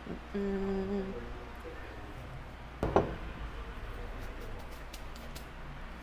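A person hums a short, steady "mmm" about half a second in, then there is a single sharp knock about three seconds in.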